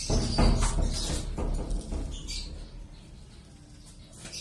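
Lovebirds chirping in short, high calls. In the first two seconds a louder low rumble with a pitched sound over it covers them.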